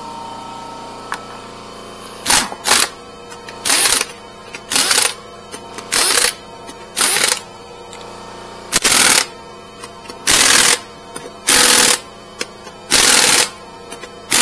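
Impact wrench working a wheel's lug nuts in about ten short bursts, each half a second to a second long, roughly a second apart.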